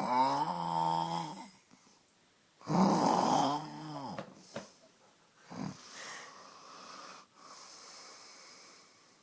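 Snoring: two long, loud snores with a wheezy, pitched tone that wavers up and down, followed by several softer, breathier snores.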